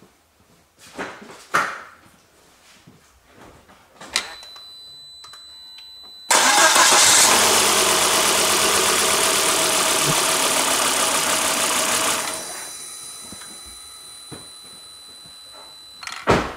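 Volvo 2.4-litre five-cylinder engine turned over with the key for about six seconds during a compression test, with a gauge fitted in place of one spark plug, then winding down. The ignition switches on with a click and a faint steady whine a couple of seconds before, and there is a sharp knock near the end.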